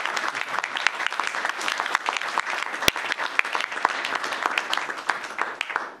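Applause from a room of people: dense clapping that dies away at the very end.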